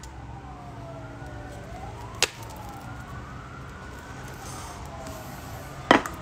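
A siren wailing, its pitch slowly rising and falling over and over, with two sharp clicks, one about two seconds in and one near the end.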